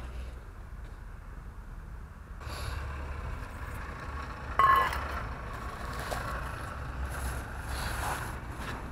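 A backpack and a plastic bag of baked goods being handled and rustled, starting about two and a half seconds in, with one short sharp sound, the loudest thing, about four and a half seconds in. A steady low engine rumble from traffic lies underneath.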